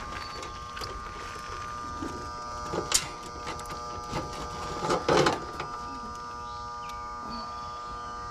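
Hands handling and twisting electrical wires at an air-conditioner condenser's control panel: a few short clicks and rustles, the loudest about five seconds in, over a steady hum of several fixed tones.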